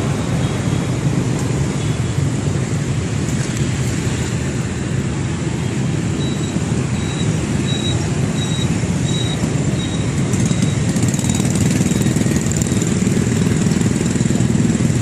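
Steady city road traffic noise, a continuous low hum of passing vehicles, with a faint high repeated peep for a few seconds midway.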